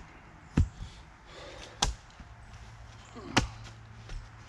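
Hatchet chopping into wood: three sharp strikes about a second and a half apart, with a couple of lighter knocks between them.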